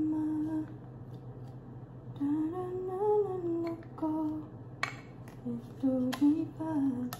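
A woman humming a tune in three short phrases with pauses between them. Two sharp plastic clicks about five and six seconds in, as nebulizer parts are fitted together.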